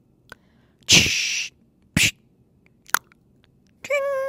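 Switch clicks from a 2024 Toyota Tacoma's cabin controls, a short loud hiss about a second in, and then, near the end, a clear electronic chime at one steady pitch.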